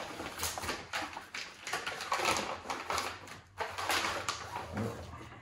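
Pink plastic packaging bag rustling and crinkling in several short spells as it is handled and pulled open.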